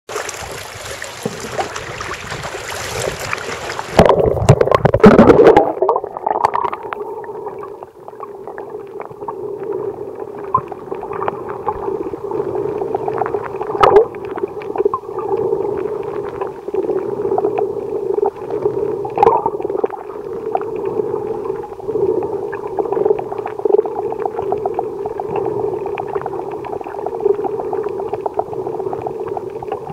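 Sea water washing at the surface for the first four seconds, then a loud splashing plunge as the camera goes under, followed by the muffled steady drone of sound heard underwater, with faint scattered clicks and crackles.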